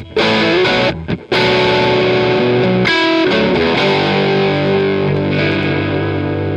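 Electric guitar played through Rose Electric Audio's JTM45-style overdrive, strumming distorted chords that ring on. It cuts out briefly about a second in, is struck again near the middle, then holds a long sustained chord.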